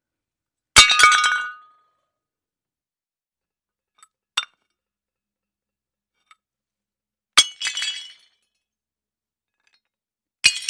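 Glass breaking: three sharp crashes, each followed by briefly ringing shards, about a second in, past seven seconds and near the end, with a light clink around four seconds.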